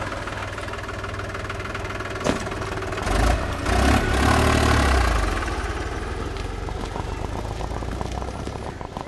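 Tractor engine running with a steady low chug. It grows louder about three seconds in and then slowly fades. There is one short knock about two seconds in.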